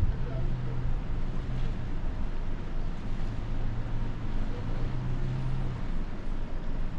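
Steady low droning hum and rumble of a cruise ship moving slowly near the pier.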